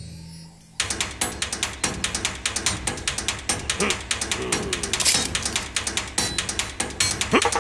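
A rapid, ratchet-like run of evenly spaced clicks that starts suddenly about a second in, with a few short sliding tones over it.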